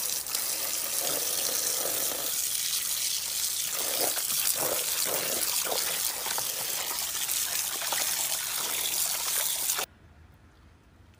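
A stream of water pouring and splashing into a plastic basin of raw chicken feet, with sloshing as a hand swishes the feet around to wash them. The pouring cuts off suddenly near the end.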